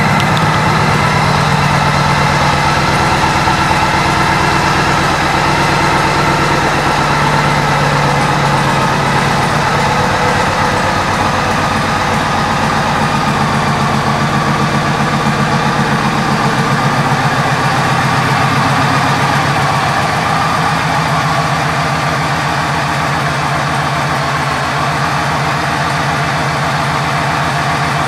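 2010 Yamaha Stratoliner Deluxe's air-cooled V-twin idling steadily through an aftermarket Freedom exhaust, a quick even pulsing beat, easing slightly in level about two-thirds of the way through.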